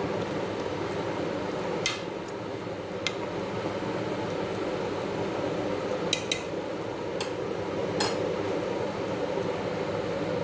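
A spoon or other utensil clinking against a cooking pot about six times, two of them in quick succession about six seconds in, over a steady rushing hum.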